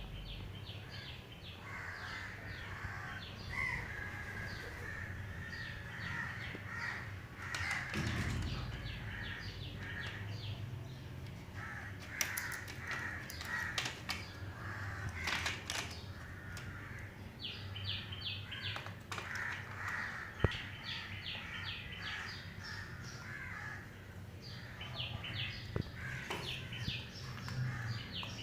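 Birds calling and chirping over a low steady hum, with quick runs of high chirps and a few sharp clicks in the middle of the stretch.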